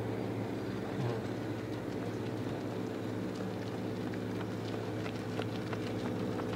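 Runners' footfalls slapping on the paved path, the ticks coming thicker in the last couple of seconds as the leading runners draw close, over a steady low hum.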